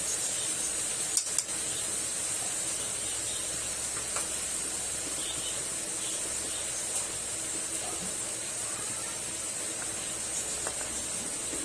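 Vegetables and ground spices frying in a pan on the stove, giving a steady soft sizzling hiss, with a couple of light clicks about a second in.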